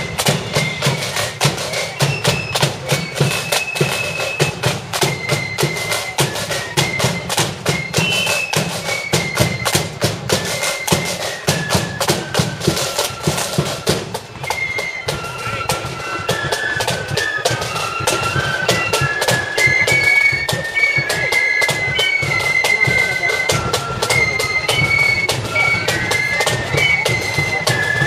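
Marching flute band playing a high tune over steady side-drum and bass-drum beats.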